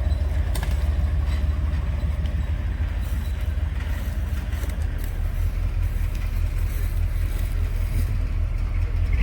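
Off-road vehicle's engine running steadily at low speed, a deep even rumble, with a few light clicks and knocks over it.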